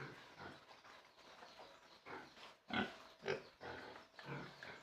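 Pigs grunting: several short calls in a row.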